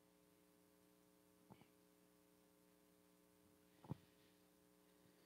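Near silence: a faint steady electrical hum, with two small faint clicks, about a second and a half in and again near four seconds.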